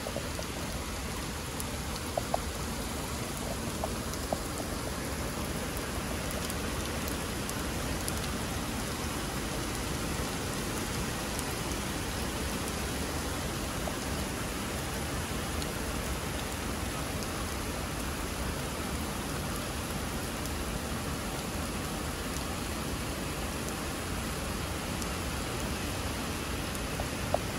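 Heavy rain pouring steadily, an even hiss, with a few faint ticks in the first few seconds.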